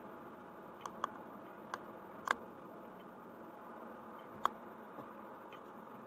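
Steady road and cabin noise from a car driving, with a handful of sharp ticks at uneven intervals, two of them louder than the rest.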